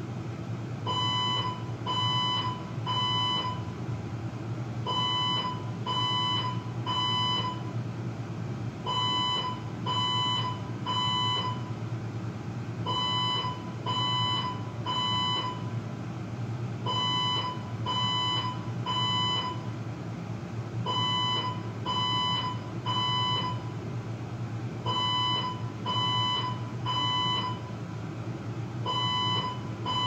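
Fire alarm sounding the three-beep evacuation pattern: three high beeps about a second apart, a pause, then again, repeating over a steady low hum. The resident calls it a false alarm.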